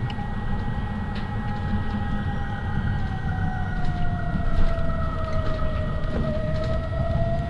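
City bus running in traffic, heard from on board: a low rumble with a drivetrain whine over it, the whine slowly falling and then rising again in pitch as the road speed changes. A steady high tone runs alongside.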